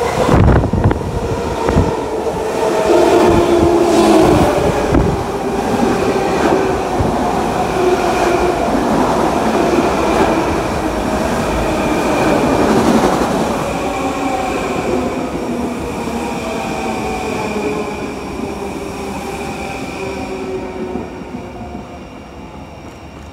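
Long Island Rail Road M7 electric train passing close by: the rumble of steel wheels on the rails with a steady whine over it, loudest over the first dozen seconds and then fading away.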